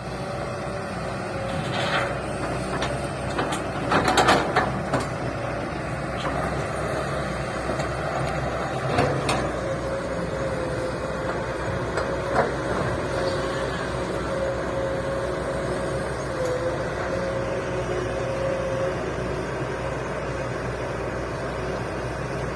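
Tata Hitachi excavator running steadily while loading a tipper, with a cluster of sharp clanks and knocks a few seconds in and single knocks about 9 and 12 seconds in. A thin steady whine sits over the engine through the middle.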